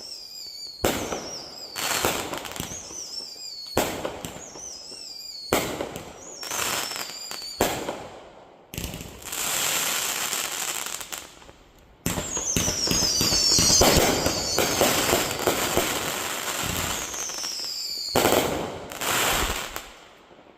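A 49-shot consumer firework cake firing: a sharp shot every second or two, many trailed by a falling whistle, then a long run of dense rapid pops for about six seconds, two last shots, and the show stops just before the end.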